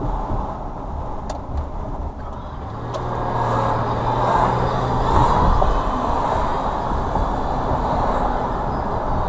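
Road noise of a car being driven, heard from inside the cabin: a steady low rumble with tyre and wind hiss, growing louder about three seconds in.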